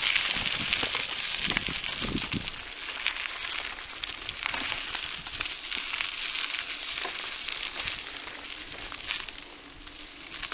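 Bicycle tyres rolling over a gravel dirt road, a continuous crackling crunch of grit under the wheels, easing a little near the end.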